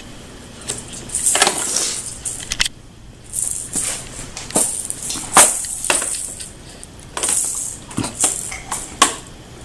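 Plastic baby rattle shaken and knocked against the hard plastic toys of an Exersaucer activity centre. It comes as repeated short bursts of bead rattling, each about half a second to a second long, with sharp plastic clacks in between.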